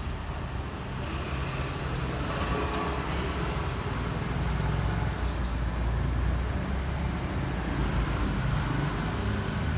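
Steady low rumble of background road traffic, with a faint click about five seconds in.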